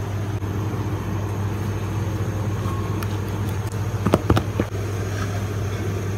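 A steady low mechanical hum that does not change, with a quick cluster of three or four sharp knocks about four seconds in.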